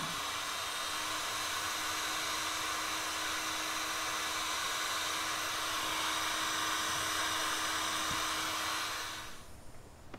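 Ryobi heat gun running, a steady blowing hiss over a steady motor hum, shrinking heat-shrink tubing over soldered wire joints. It is switched off about nine seconds in and winds down.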